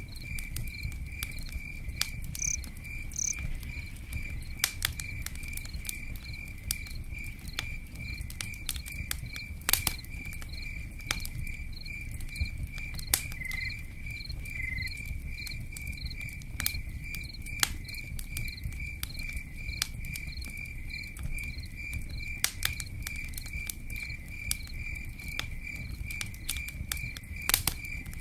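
A cricket chirping steadily at about three chirps a second, over a low steady rumble, with scattered sharp pops and clicks from a crackling campfire and rain patter.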